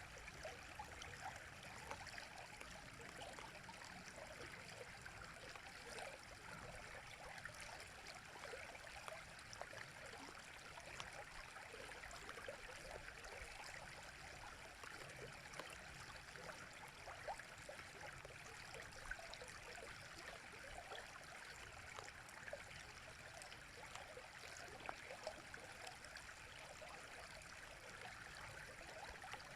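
Faint, steady flowing river water, babbling with many small bubbling splashes.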